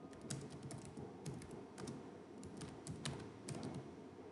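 Computer keyboard being typed on: a run of irregularly spaced key clicks as a short command is entered.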